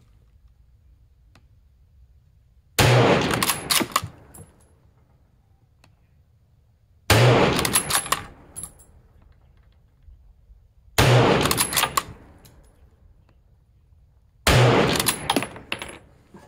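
Four rifle shots from a Pattern 1914 Enfield (P14) in .303 British, about four seconds apart. After each shot comes a short run of metallic clicks as the bolt is worked to eject the case and chamber the next round.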